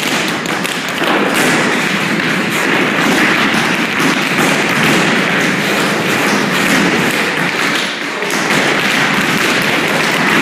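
Many dancers' tap shoes striking a hard floor together in a group tap routine: a dense, continuous clatter of taps and stamps.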